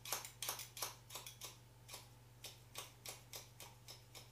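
Hairdressing scissors snipping in a quick series of short, sharp clicks, about four snips a second with a brief pause about one and a half seconds in, as the tips point cut into the ends of a mannequin's pigtail to texturize it.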